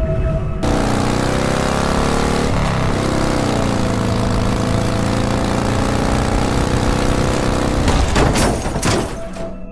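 Motorcycle engine running, its pitch dipping and rising again about two to three seconds in, then holding steady. Near the end a few short bursts of harsher noise cut in.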